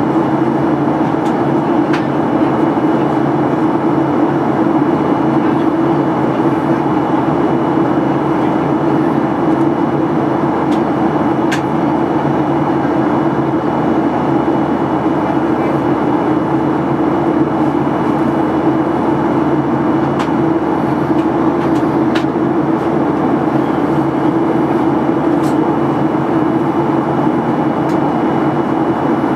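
Steady cabin noise of a Boeing 737-800 in flight: the CFM56-7B engines and the airflow along the fuselage make an even roar with a low hum, and a few faint clicks sound through it.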